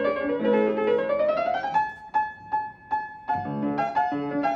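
A Viennese fortepiano being played: a quick rising run of notes, then a single high note struck several times, short and detached with gaps between, before fuller playing with bass notes resumes near the end.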